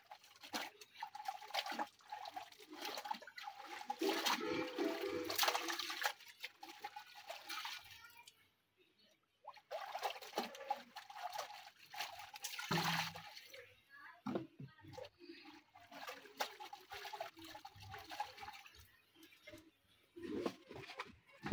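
Water splashing, trickling and dripping in a plastic tub as wet clothes are lifted out of laundry-blue rinse water and wrung out by hand, with a hose running into the tub. The sound stops briefly about eight seconds in.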